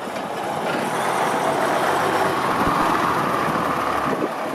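Bristol VR double-decker bus driving slowly past, its engine growing louder as it draws level and easing a little about four seconds in as it moves away.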